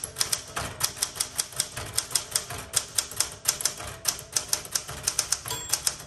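1967 Smith Corona Super Sterling manual typewriter being typed on at a steady pace, sharp key and typebar strikes about six a second. A short ring near the end is the margin bell, warning that the carriage is nearing the right margin.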